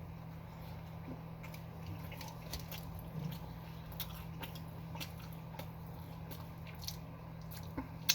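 A person chewing a mouthful of sub sandwich: soft, wet, scattered mouth clicks and squelches, over a steady low hum.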